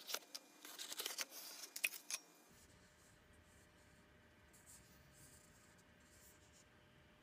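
Cardboard and paperboard packaging rustling and scraping with sharp crinkles as an LED bulb is pulled out of its box. About two seconds in it cuts off suddenly to faint room tone with a low hum.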